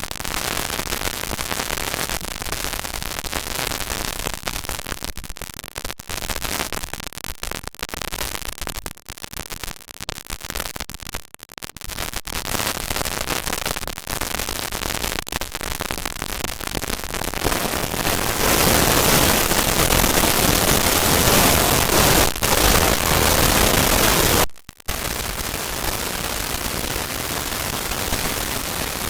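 A stomach-growling sound effect played at very high speed, so that it comes out as a dense, crackling, static-like noise. It gets louder and brighter about two-thirds of the way through, cuts out for a split second, and then carries on quieter.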